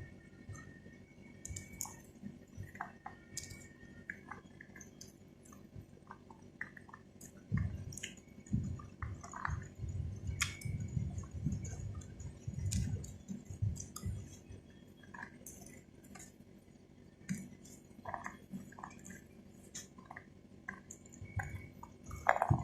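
Close-mic chewing of pomegranate seeds, wet squishy bites coming in bouts, with scattered small sharp clicks between them.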